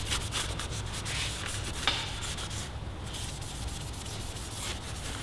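Cloth rag rubbing over an Akrapovic stainless steel exhaust header, wiping handprints and oil off the pipe: uneven rubbing strokes, with a short sharp tap about two seconds in.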